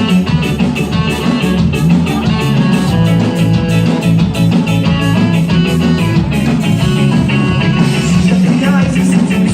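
A live rock band playing: guitar over drums with a steady beat.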